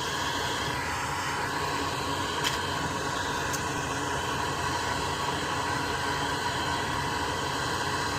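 Steady fan-like rushing noise, with a couple of faint ticks.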